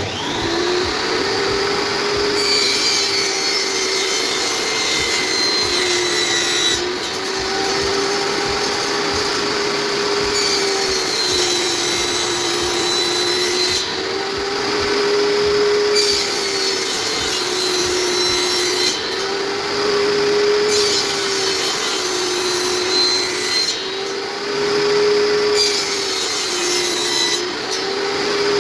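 Table saw running and cutting wood. The motor's steady whine dips in pitch several times as the blade takes load, over the continuous hiss of the cut.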